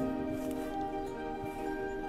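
Background music with sustained held notes, new notes coming in now and then.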